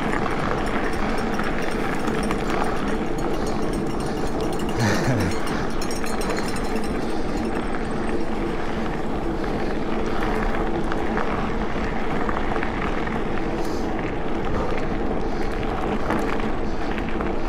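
A vehicle engine running steadily, with a rushing noise over it.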